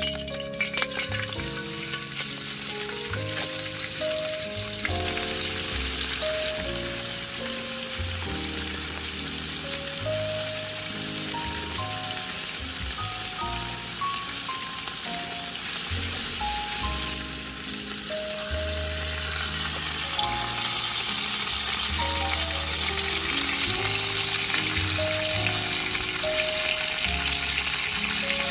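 Food sizzling and frying in a hot pan, a steady crackling hiss, under background music with a melody and bass line.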